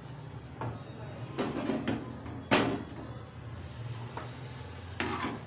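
A few knocks and scraping clatters of a metal spatula against an aluminium frying pan, the loudest a single sharp knock about halfway through, over a steady low hum.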